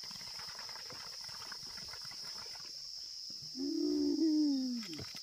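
Steady high-pitched insect drone, with one drawn-out hoot-like call that arches and then slides down, starting about three and a half seconds in; it is the loudest sound.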